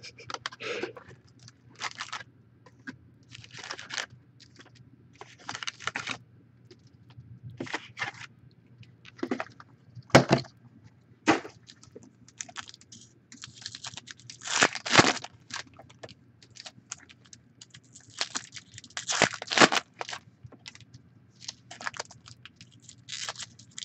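Foil trading-card packs and a cardboard card box being handled, heard as irregular short crinkling and rustling bursts with quiet gaps between them.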